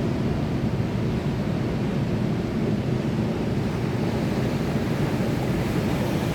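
Sea surf, a steady low rumble of waves with no single break standing out.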